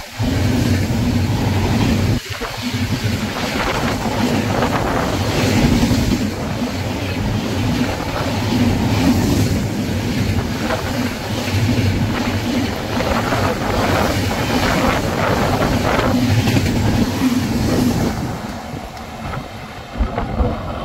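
Passenger train passing at speed close by: a steady rush of wheels on the rails and coach noise, with brief sudden drops near the start and about two seconds in.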